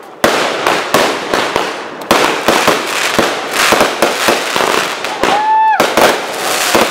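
Fireworks display: sharp bangs of shells going off just after the start and again about two seconds in, then dense crackling from bursting crackle stars. A brief pitched tone sounds over the crackle a little after five seconds.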